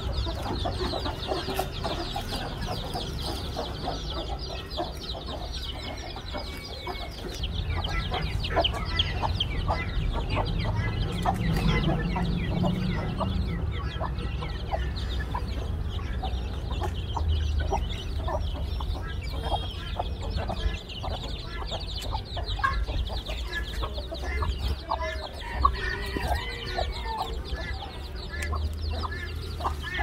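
A brood of small chicks peeping constantly in quick, high chirps, with a hen clucking among them, over a steady low rumble.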